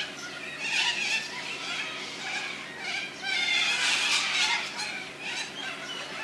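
A flock of corellas screeching, harsh overlapping calls that swell loudest in the middle.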